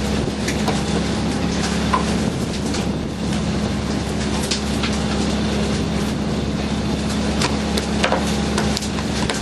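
Fishing boat's engine running steadily, a constant low drone, with a handful of sharp knocks and clatters on board at irregular moments.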